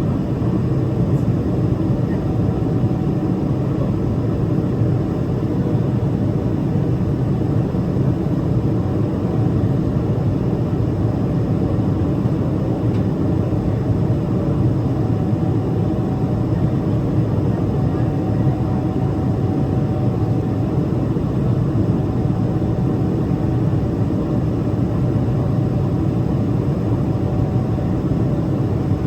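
Steady jet noise of a Boeing 777-300ER's GE90 turbofan engines: a dense, even low rumble with a faint steady whine above it, unchanging throughout.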